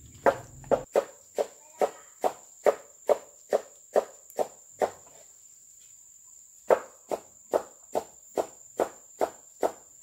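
A heavy cleaver chopping fish into steaks on a wooden chopping block: a steady run of sharp chops about two a second, stopping for over a second and a half midway, then going on at the same pace. A thin high steady whine runs underneath.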